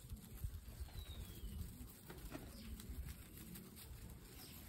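A group of guinea pigs eating fresh grass: soft chewing, tearing and rustling of the blades, with a few short, low coo-like sounds.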